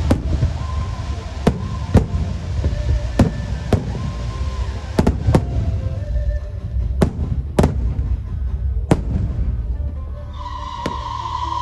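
Aerial fireworks shells bursting: about a dozen sharp bangs at irregular intervals over a steady low rumble. A steady high tone comes in near the end.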